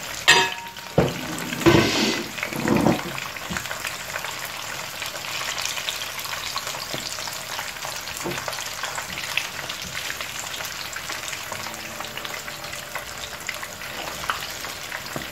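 Hake fish pieces deep-frying in hot vegetable oil in a non-stick pan: a steady crackling sizzle. In the first three seconds there are a few loud knocks of the tongs against the pan.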